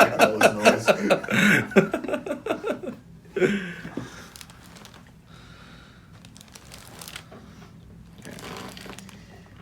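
Faint rustling and crinkling as a patient shifts and is positioned on a chiropractic treatment table, after a few seconds of voices at the start.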